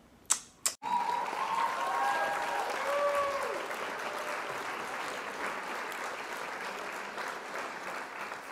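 Applause sound effect, starting suddenly about a second in after two short clicks, then slowly dying down.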